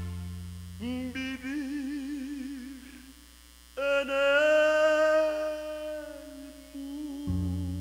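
Male singer's voice through a microphone, singing an unaccompanied phrase and then a long held note with wide vibrato. A sustained low chord of the backing music is under him at the start and comes back in near the end.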